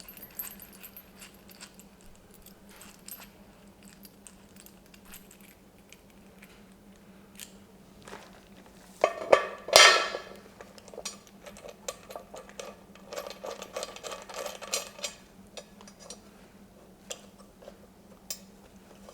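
Small metal hardware clinking and clicking as nuts, washers and caster wheels are handled and hand-threaded onto a steel car dolly frame, with a louder clatter about halfway through and a run of small clicks after it.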